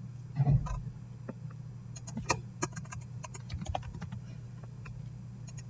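Computer keyboard typing: scattered keystroke clicks, thickest from about two seconds in, over a steady low hum. A short low thump sounds about half a second in.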